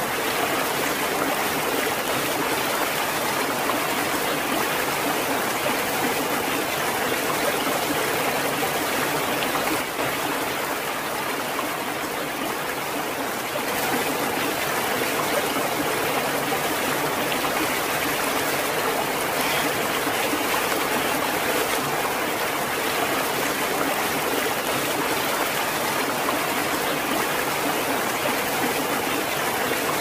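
Water of a cascading mountain stream rushing over rocks: a steady, even rushing noise that dips slightly in level for a few seconds about ten seconds in.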